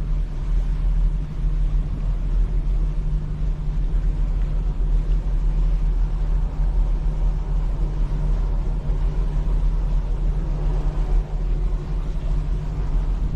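Steady low rumble of the yacht's MAN V12 diesel engines driving Kongsberg Kamewa waterjets as the boat turns in place under manoeuvring power.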